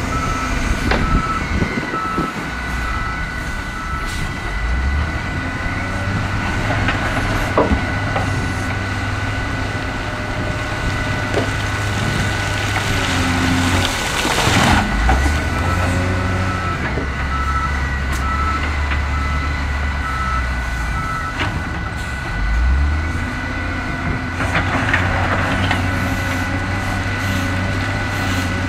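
SDLG wheel loader's diesel engine working as it pushes dirt and rock, its low note rising and falling as the load and revs change. Its reversing alarm beeps at an even pace near the start and again for several seconds around the middle. A short burst of noise comes about halfway through.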